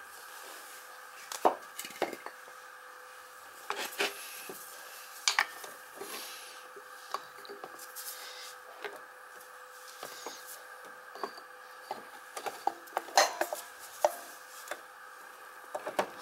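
Irregular clicks, knocks and light scrapes of metal parts being handled as a scooter's front wheel is fitted: the greased axle pushed through the wheel hub and brake drum panel. A steady faint hum runs underneath.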